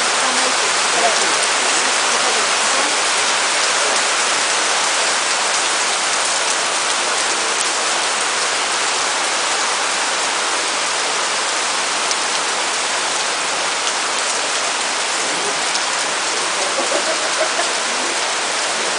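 Heavy tropical rain pouring steadily onto foliage and ground, a dense, even hiss of countless drops.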